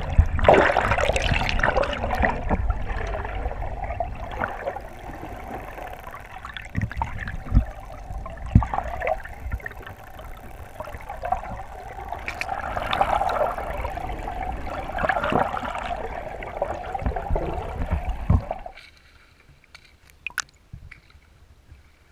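Water sloshing and gurgling around a camera held under the sea surface, with a few sharp knocks along the way. It stops abruptly a few seconds before the end, leaving only a few faint ticks.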